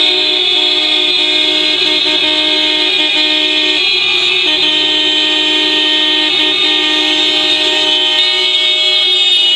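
Many taxi car horns held down together in protest, sounding as one long, unbroken chord of several overlapping pitches.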